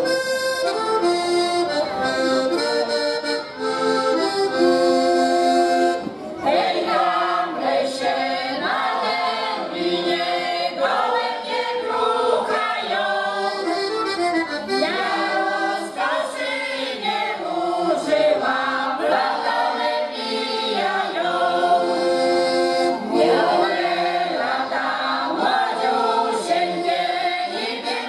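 A folk choir singing with accordion accompaniment. The accordion plays chords alone for the first six seconds or so, then the voices come in and sing over it.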